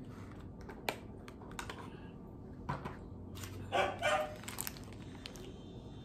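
Rustling of parchment paper and cardboard clicks as a takeout wings box is opened, with two short dog barks close together about four seconds in.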